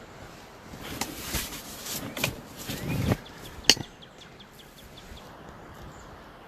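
Close rustling and handling of gear near the microphone, ending in one sharp click, followed by a faint, quick run of short high chirps from a small bird.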